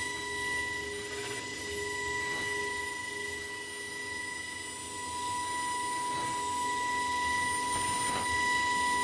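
CNC lining drawing and cutting machine running, giving a steady high-pitched electronic whine with a fainter overtone above it.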